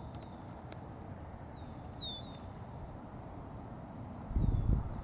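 A bird calling with short, high whistled notes that slide downward, repeated at uneven intervals over a steady outdoor background. A brief loud low rumble about four and a half seconds in.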